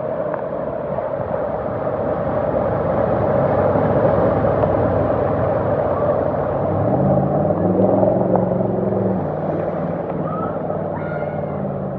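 Nissan Titan pickup truck ploughing through deep floodwater: a heavy rushing wash of water from its bow wave swells as it passes. As it pulls away, its engine note comes through underneath, stepping in pitch.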